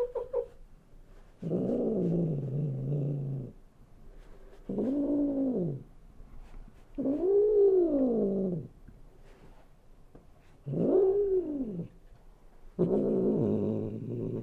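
A domestic cat grumbling with drawn-out, low yowling moans. There are five long calls a second or two apart, several of them rising and then falling in pitch.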